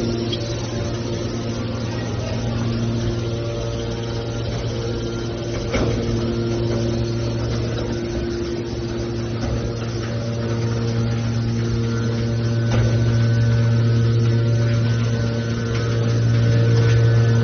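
Heavy machinery running with a steady low hum and several higher tones that fade in and out, with a few short knocks along the way.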